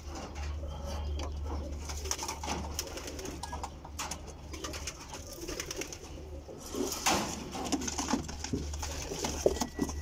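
Domestic pigeons cooing, with repeated clicks and rattles of a wire-mesh pigeon pen being handled.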